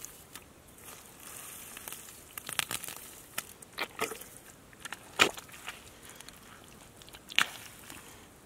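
Bare hands digging into wet, clumpy mud and breaking up the clods: irregular scraping and crumbling noises with a few sharp clicks, the loudest about five seconds in and another about seven and a half seconds in.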